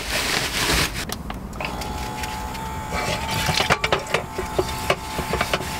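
A plastic trash bag rustling, then dishwashing: a sponge scrubbing a skillet, with sharp knocks and clinks of pans and utensils, over a steady whine from a small electric water-jug pump that starts about a second and a half in.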